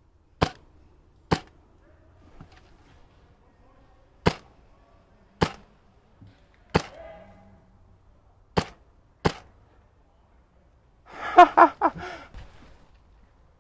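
Airsoft DMR rifle, shooting 0.45 g BBs at 1.88 joules, firing single shots: seven sharp cracks, one to two seconds apart. About eleven seconds in comes a short, louder burst of sound.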